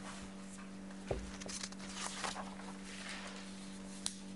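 Quiet room tone with a steady low hum, broken by a soft thump about a second in, some faint rustling, and a sharp click near the end.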